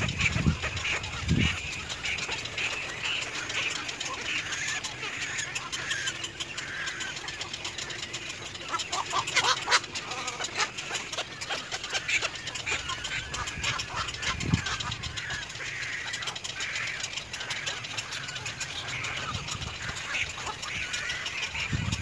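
Black-crowned night herons calling: many harsh, duck-like squawks overlapping, with a burst of clicking calls about halfway through.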